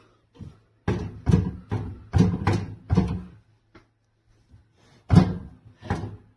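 Black+Decker EM720CB7 microwave's push-button door being worked repeatedly, making a series of short clunks and rattles.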